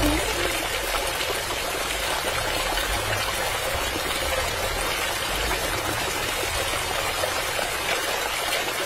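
Water pouring steadily from the small pipe spouts of a miniature tube well and splashing into the shallow pool of a flooded flower bed.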